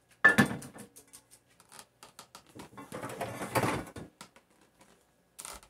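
Kitchen things being handled: a sharp knock about a quarter second in, scattered small clicks, and a longer rattling clatter around three to four seconds in.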